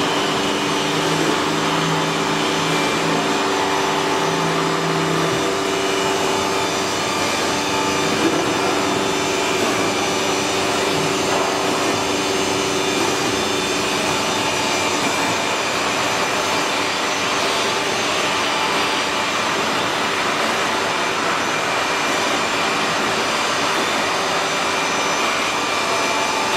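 Three-spindle CNC router running, its spindles drilling and cutting a board, with a steady machine whine and hiss. A low hum comes and goes in the first few seconds.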